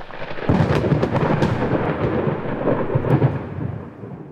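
Thunder sound effect: a long rumble of thunder that swells within the first half second, holds, and fades away near the end.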